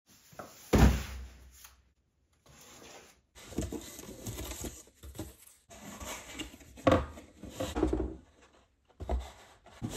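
Cardboard packaging handled on a wooden bench: box flaps folded open, an inner box lifted and parts pulled from a molded pulp tray, with irregular rustling, scraping and knocks. A thump about a second in is the loudest sound.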